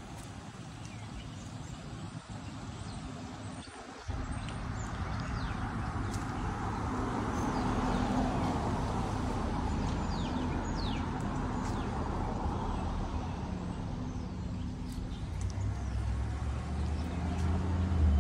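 Street traffic on a residential street: passing cars with a swell of engine and tyre noise in the middle and a deeper engine rumble building near the end. Short high chirps of small birds come through now and then.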